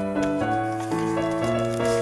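Background music: a keyboard melody over sustained chords, with notes changing every few tenths of a second.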